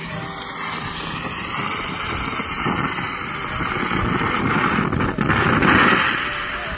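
TNT Tasmanian Cyclone firework fountain spraying sparks and stars with a steady rushing hiss, growing louder about five seconds in.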